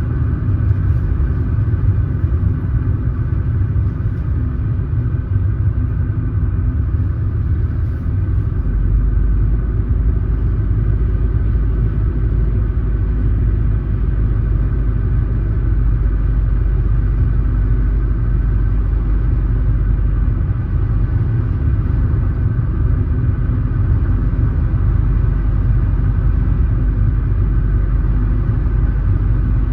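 A car on the move: steady low road and engine rumble. The deepest part of the rumble grows heavier about a third of the way in.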